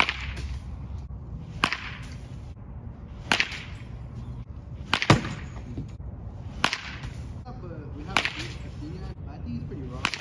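Baseball bat hitting balls during batting practice: seven sharp cracks, about one every second and a half, each trailing off briefly.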